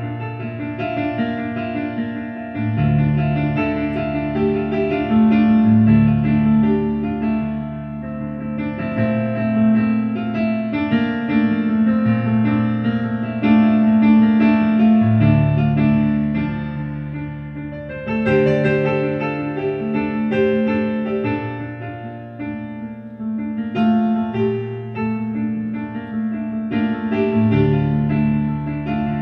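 Background piano music: slow, held chords over a bass note that changes every few seconds.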